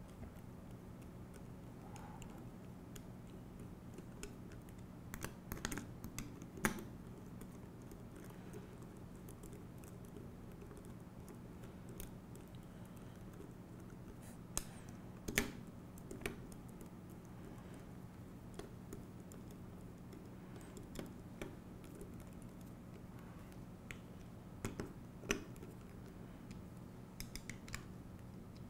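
Hex screwdriver turning and tightening small machine screws into a metal planetary gearbox: scattered light clicks and taps of the steel tool against the screw heads and aluminium housing, in small clusters, over a faint steady hum.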